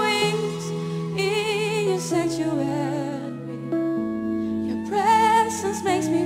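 Live worship song: a woman singing with vibrato over sustained keyboard chords, the voice in the first two seconds and again about five seconds in, with only the held chords between.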